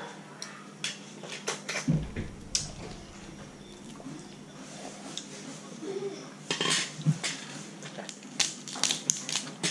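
Dungeness crab shell cracking and clicking as its legs and body are broken apart by hand and the meat pulled out: scattered sharp snaps, with a dull thump about two seconds in.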